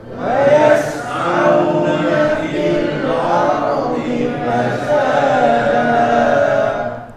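A group of men chanting a Quranic phrase together in unison, repeating what the teacher has just recited; the many voices blur into one slightly ragged chant that stops just before the teacher's voice returns.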